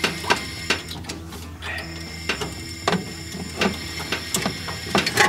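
Irregular metallic clicks and knocks, some ringing briefly, as a disc-brake conversion assembly (caliper, bracket and rotor) is worked by hand onto a car's front spindle.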